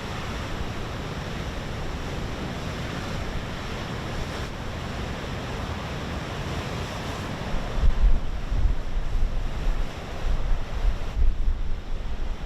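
Rough storm sea breaking against the shore, a steady rushing wash of surf; from about eight seconds in, strong gusts of wind buffet the microphone with irregular low rumbling.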